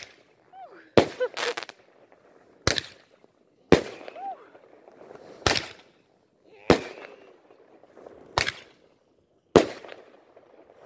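Ground-lit fireworks battery firing shots one after another: about nine sharp bangs, irregularly spaced a second or so apart, each with a short echoing tail.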